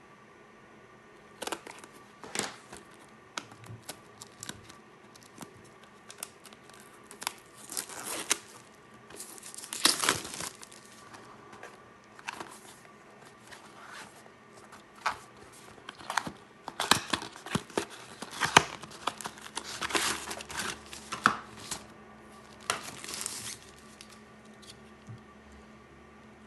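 Plastic packaging being handled and opened: crinkling, tearing and rustling, with scattered clicks and taps. The sounds come in irregular bursts, busiest between about 16 and 24 seconds.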